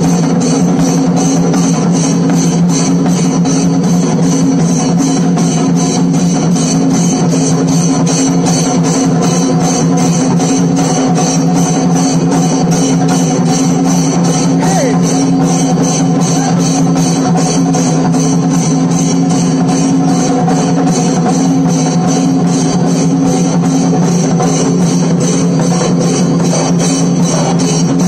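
A Kerala chenda melam ensemble: several chenda drums beaten with sticks in a fast, loud, steady rhythm that runs on without a break.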